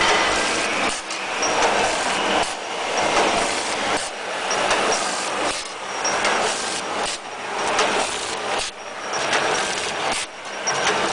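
Automatic vertical form-fill-seal sachet packaging machine running, a steady mechanical din with a repeating clatter as its dosing and sealing mechanism cycles.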